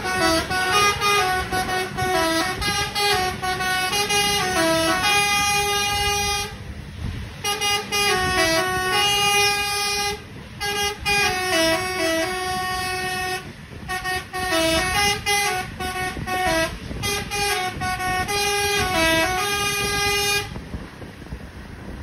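A tour bus's 'telolet basuri' musical horn playing a melody of short stepped notes in several phrases, with brief pauses between them, over the low rumble of the bus's engine.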